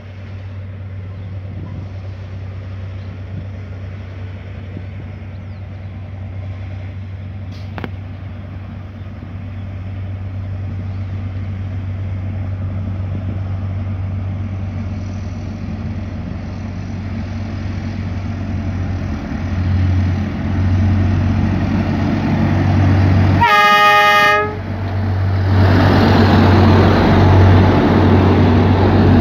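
Engine of a rail track-maintenance vehicle approaching along the track, its steady hum growing louder. About three-quarters of the way in it gives one short horn blast of about a second, then its engine runs loud as it passes close.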